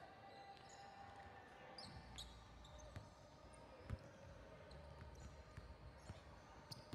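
Faint basketball dribbling on a hardwood gym floor: scattered ball bounces, the loudest about four seconds in, with a few short high sneaker squeaks around two seconds in.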